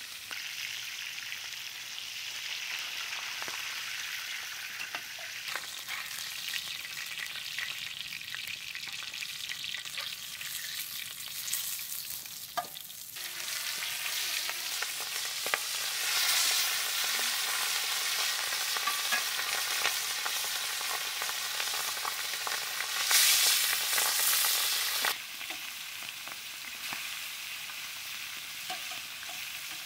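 Pangas fish pieces sizzling in hot oil in a black iron kadai, with a metal spatula scraping and clicking against the pan as the pieces are turned. The sizzle grows louder about halfway through and drops back suddenly a few seconds before the end.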